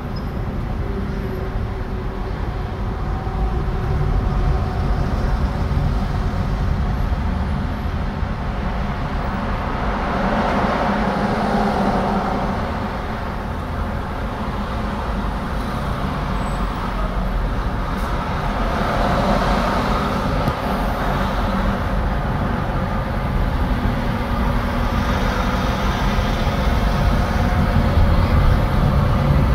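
Highway traffic heard from inside a car in slow, heavy traffic: a steady low rumble of engines and tyres, swelling twice for a few seconds, about a third and about two-thirds of the way in.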